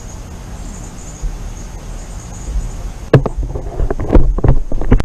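Wind rumbling on a rifle-mounted camera's microphone, then, about three seconds in, a sharp click followed by a run of irregular loud thumps and knocks: handling noise as the air rifle is gripped and swung.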